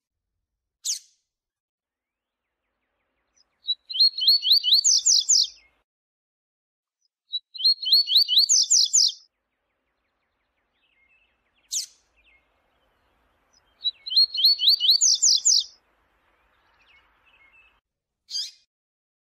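Double-collared seedeater (coleiro) singing the viu-tiu song: three phrases of about two seconds each, each a fast run of repeated notes that climbs higher at the end, with a single sharp note before and between them.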